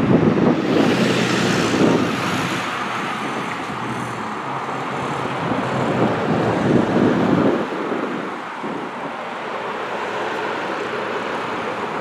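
Road traffic with wind on the microphone: cars passing on the road, the rumble swelling over the first two seconds and again around six to seven seconds in.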